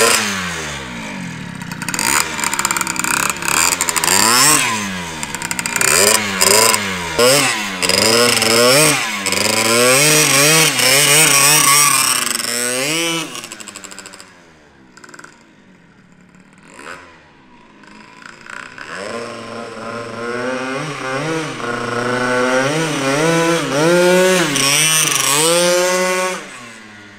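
Two-stroke scooter engine revving hard, its pitch rising and falling over and over through acceleration and gear-less throttle blips as it rides away. It fades to a faint sound for a few seconds in the middle, then grows louder again with more revving as it comes back.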